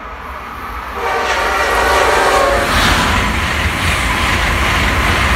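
Amtrak Acela Express high-speed train sounding its horn for about a second and a half as it approaches, then passing close at speed with loud, steady wheel and air noise.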